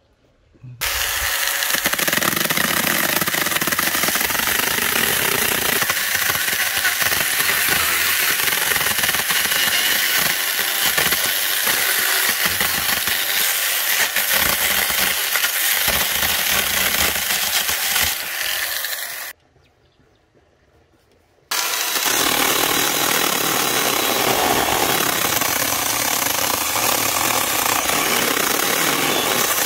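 AUSHEN 4-inch mini cordless electric chainsaw running steadily and cutting through wood. It starts about a second in, stops for about two seconds roughly two-thirds of the way through, then runs and cuts again.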